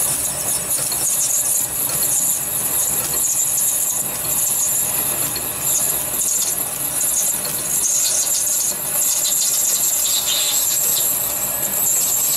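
Parting tool cutting through a 50 mm brass bar on a metal lathe, giving a steady high-pitched squeal from the cut over the running lathe.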